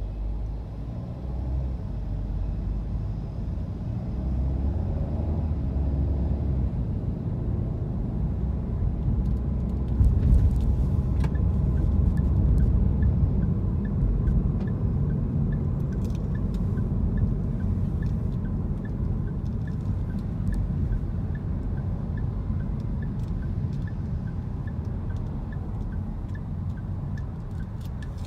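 Car driving on city streets, heard from inside the cabin: a steady low road and engine rumble that swells louder around ten seconds in. A faint, evenly paced ticking runs through the second half.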